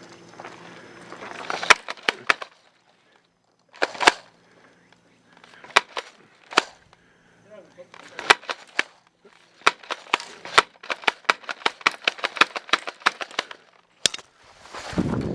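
Airsoft guns firing: single sharp shots a second or two apart, then a run of quick shots, about five a second, for several seconds.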